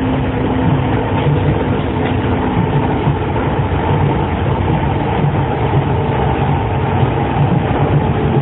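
Astram Line 6000 series rubber-tyred train running, with the low hum of its shunt-wound chopper-controlled traction motors over a steady rumble. A few steady tones sound together, and the lowest drops out about two and a half seconds in. The motor sound on this car is abnormal.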